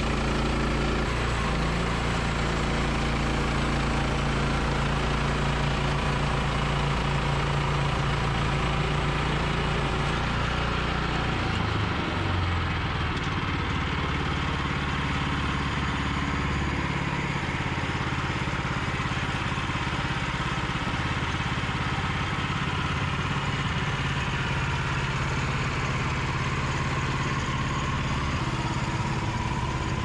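Woodland Mills HM122 bandsaw mill running steadily, its gas engine driving the band blade through a log cant. The low engine hum shifts in pitch about twelve seconds in.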